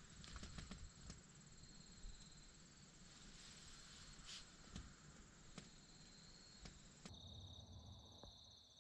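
Near silence with faint, steady, high-pitched insect trilling. The trill changes to a lower pitch about seven seconds in, and a few soft clicks and rustles are heard.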